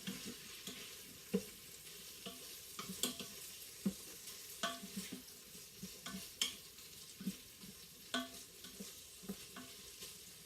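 Cubes of chicken sizzling in olive oil in the inner pot of a Farberware electric pressure cooker on its brown/sear setting, with a utensil knocking and scraping against the pot about once a second as the pieces are stirred.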